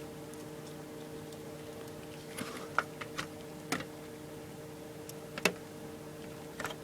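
Screwdriver and screw clicking and tapping against a computer's metal drive bay while a hard drive is being screwed in: about six sharp, irregular clicks, the loudest about five and a half seconds in, over a steady low hum.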